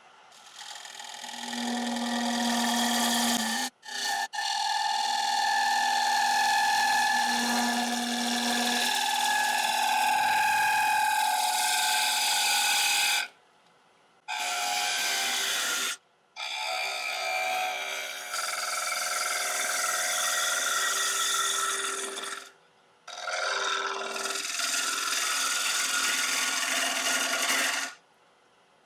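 Turning tool cutting the inside of a spinning Irish yew bowl on a wood lathe: finishing passes on a dried, rough-turned bowl, a steady scraping rush of the cut with humming tones, stopping briefly a few times.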